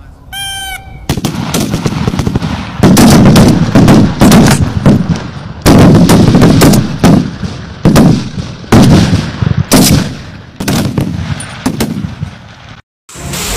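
Large-calibre sniper rifles firing along a firing line: about a dozen loud, irregularly spaced shots, each with a rolling echo. A brief high-pitched tone sounds just before the first shot.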